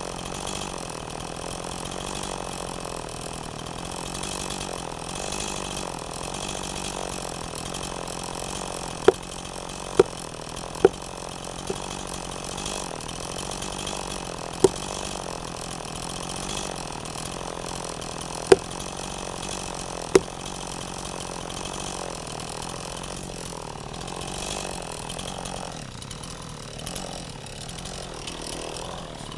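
A motor running steadily, its low pitch wavering slightly, with six sharp knocks scattered through the middle stretch.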